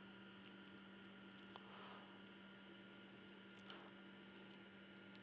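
Near silence: a low steady electrical hum with a couple of faint clicks.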